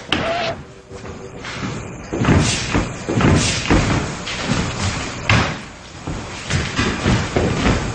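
A rapid, irregular series of thumps and bangs, starting about two seconds in, with faint indistinct voices among them.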